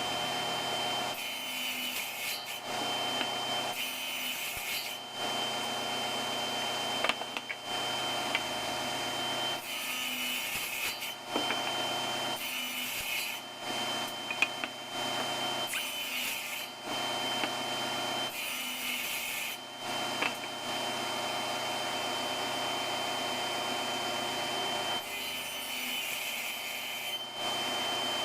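Table saw running with a steady whine, its blade cutting into wood in a series of separate passes a few seconds apart while tenons are cut.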